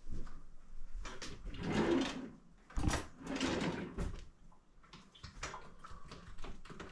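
Kitchen handling noises at a counter: a run of clicks and knocks, with two longer stretches of rustling and clatter about two and three and a half seconds in.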